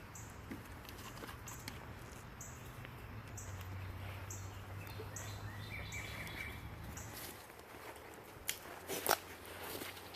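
Outdoor ambience: short high chirps repeat about once a second over a low steady hum that stops about seven seconds in. A few sharp clicks or knocks come near the end.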